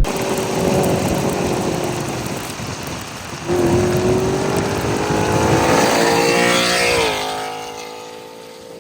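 Ford Mustang GT S650's 5.0 Coyote V8 with long-tube headers and an X-pipe, running under acceleration. About three and a half seconds in it suddenly gets louder, its note climbing steadily in pitch under a hard pull. Near seven seconds the pitch drops and the sound fades as the pull ends.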